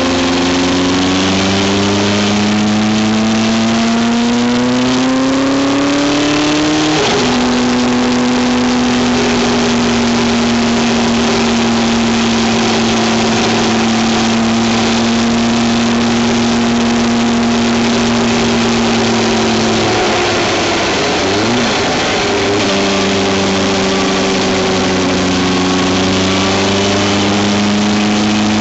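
A road vehicle's engine running hard, rising in pitch for about seven seconds, then dropping abruptly and holding a steady note. About twenty seconds in the pitch dips and settles lower. A steady rush of wind and road noise lies under it.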